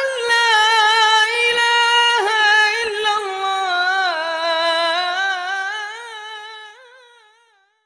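A single voice singing one long, drawn-out melodic line with ornamented turns, slowly falling in pitch and fading away near the end.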